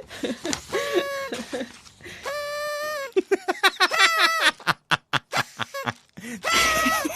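High-pitched comic laughing and squealing voice sound effects: a string of short cries, one held squeal about two seconds in, and a quick staccato run of bursts around the middle.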